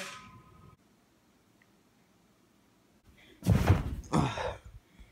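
A few seconds of near silence, then a sudden thump and scuffle against foam couch cushions, as someone lands on them, mixed with a brief grunt-like voice sound.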